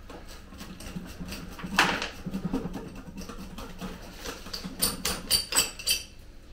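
Hand saw rasping through a compacted, root-bound root ball in quick repeated strokes. The strokes get sharper and louder near the end.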